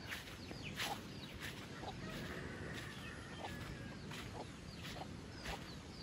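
A rooster crowing faintly, one drawn-out call about two seconds in, among short chirps of small birds.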